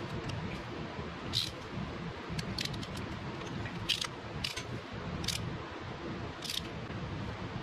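About eight sharp, irregularly spaced clicks from a hand driver on a long extension as the trigger coil bolts by the stator of a 2002 Polaris Sportsman 700 are tightened to torque.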